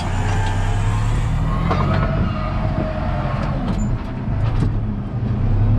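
A diesel tractor engine runs steadily under load while pulling a plough through the field. A few light clicks and rattles sit over the hum.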